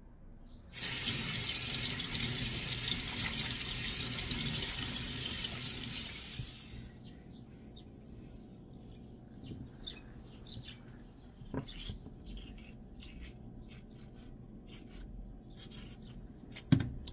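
Kitchen tap running into a sink for about six seconds, then shut off, followed by scattered small clicks and knocks, with one sharp knock near the end.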